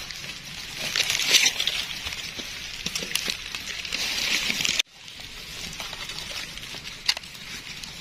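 Rustling and crackling of dry leaf litter, with many small crunches as someone moves and handles things on a forest floor; it cuts off abruptly about five seconds in and picks up again.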